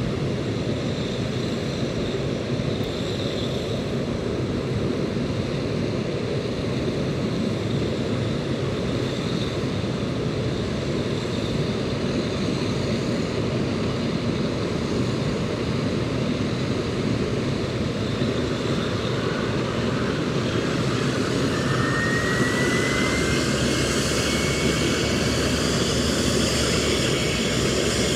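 Lockheed L-1011 TriStar's Rolls-Royce RB211 turbofans running at taxi power as the airliner rolls past, a steady jet rumble. Near the end the sound swells and a high engine whine comes in.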